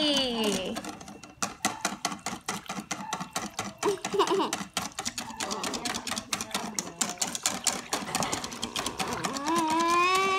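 Wire whisk beating thin risoles batter in a stainless steel bowl, its wires clicking fast and evenly against the metal. Near the end a drawn-out, voice-like call starts over the clicking.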